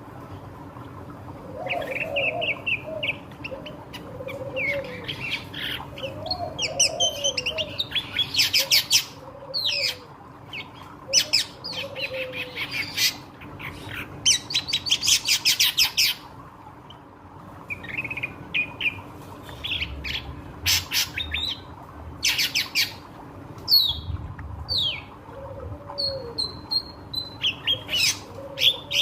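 Ashy drongo singing a varied, chattering song: whistled notes, fast harsh rattles and lower warbled phrases, over a faint steady hum.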